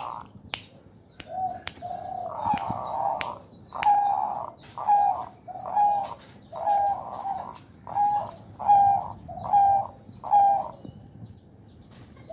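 Male zebra dove (perkutut) cooing in a run of short, evenly spaced notes about one a second, the courtship coo (bekur) of a bird in breeding condition. Sharp finger clicks from the owner prompt it in the first few seconds.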